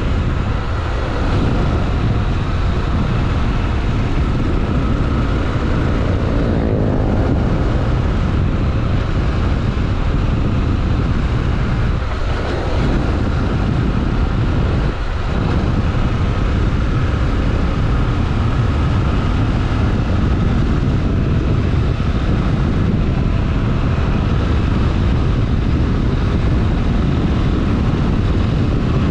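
Honda XRE 300 Rally's single-cylinder engine running steadily on the move, with heavy wind rush on the microphone.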